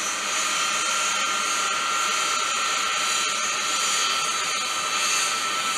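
Boeing C-17 Globemaster III jet transport flying past, its four Pratt & Whitney F117 turbofans making a steady high whine over an even rushing noise, with little low rumble.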